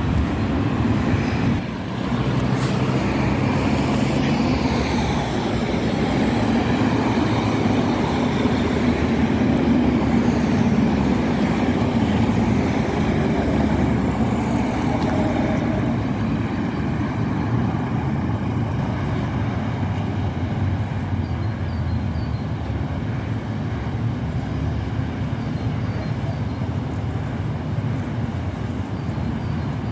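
Road traffic on a main road: tyre and engine noise from passing vehicles. It swells as one vehicle passes close, loudest about ten seconds in, then settles to a steady hum of traffic.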